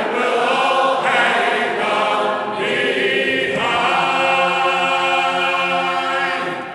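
Soundtrack music: a choir of voices singing a sea shanty in harmony, closing on a long held chord that starts to fade near the end.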